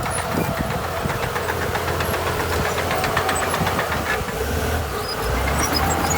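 Diesel engine of heavy earthmoving machinery running steadily, with a scatter of metallic clanks and knocks over it.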